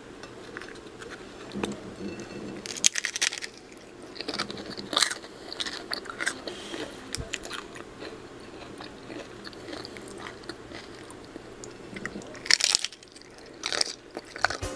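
Someone biting into and chewing a crisp fried tostada shell, with several loud crunches among quieter chewing, the loudest cluster near the end.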